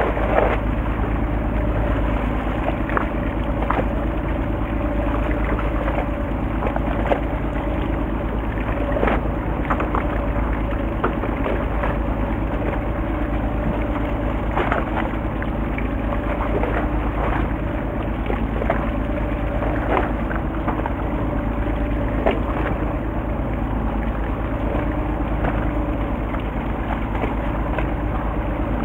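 Fishing boat's engine running steadily at low revs, a constant low hum with a faint steady tone, mixed with wind on the microphone. Short light clicks and knocks come every few seconds.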